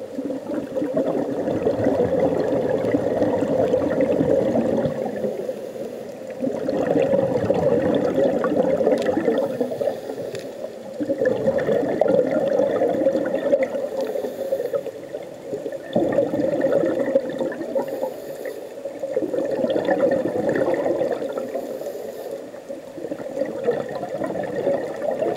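Scuba diver's breathing heard through an underwater camera: bubbles from the regulator's exhaust bubbling in surges of two to three seconds, about every four to five seconds, with quieter gaps between them for the inhales.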